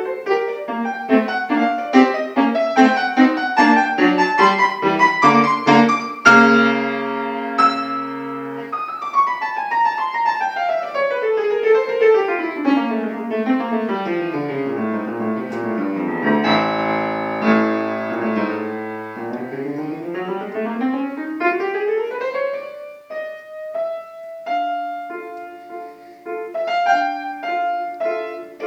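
Solo piano playing a classical piece: quick notes, then held chords about six seconds in, a long falling run and a rising run in the middle, and slower notes near the end.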